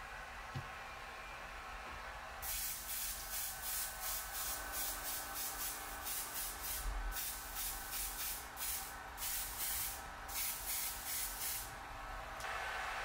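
Airbrush spraying black leather paint in many short on-off bursts of hiss as the trigger is pulled and released, building up thin coats on a scuffed boot. Near the end a steady, slightly louder blowing hiss takes over.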